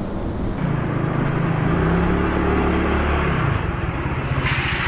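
Motorbike engine running, its note rising about half a second in and then dropping back to a steady lower note a little after three seconds in.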